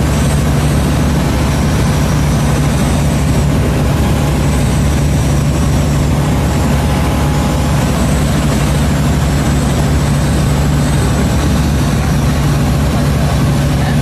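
Small plane's engine droning steadily in flight, heard from inside the cockpit, with a faint high whine that comes and goes.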